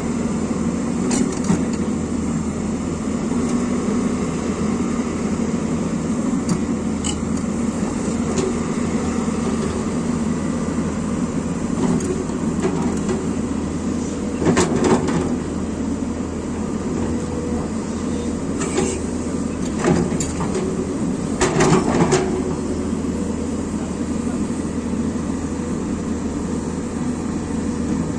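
Excavator engine running steadily, with several short clanks and knocks along the way.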